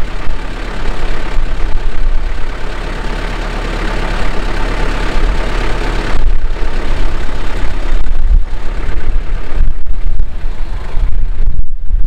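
A tow truck's engine running steadily at idle, with a deep rumble; it gets a little louder about halfway through.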